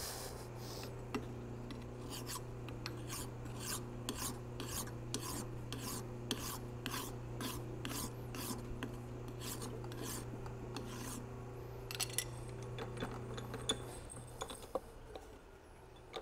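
Flat hand file stroking across a driveshaft yoke, dressing down high spots: a steady rhythm of rasping strokes, about two a second, that thin out and stop near the end. A steady low hum runs underneath and stops at about the same time.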